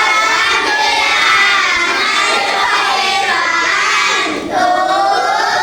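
A class of children answering together in a loud, drawn-out sing-song chant, many voices in unison with a short break near the end. It is the class's reply to the Arabic greeting 'Kaifa halukum?', the set response 'Alhamdulillah, bikhair'.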